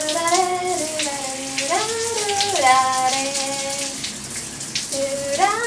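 Shower water running while a woman sings a slow tune of long held notes, sliding up into some of them.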